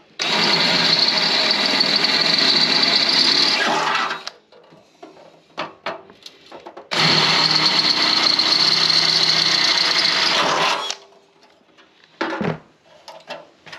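Cordless drill with a twist bit boring through the sheet-steel radiator core support, running steadily in two bursts of about four seconds each with a pause between them.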